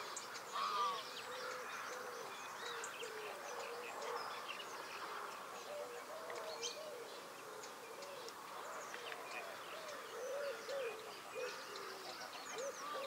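Canada and greylag geese calling at a distance in a steady run of short, repeated honks, with small birds chirping in short high notes over them.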